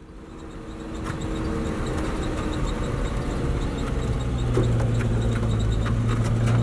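Pickup truck engine running as it drives up a rocky dirt track, with a low hum that grows louder about four seconds in as the truck passes close.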